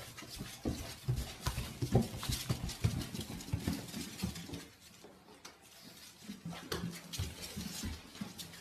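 Quick, irregular taps and pats on a hardwood floor: a crawling toddler's hands slapping the boards and small puppies' paws pattering around him. The tapping is busiest in the first few seconds, eases off about halfway, then picks up again.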